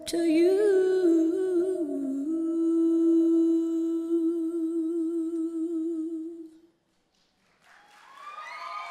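A woman's recorded singing voice holds the song's long final note with vibrato, then fades out about six and a half seconds in. After about a second of silence, the audience begins to cheer and applaud.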